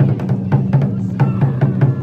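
Japanese taiko drum ensemble playing, with quick sharp strikes about six a second over a low, steady drum tone.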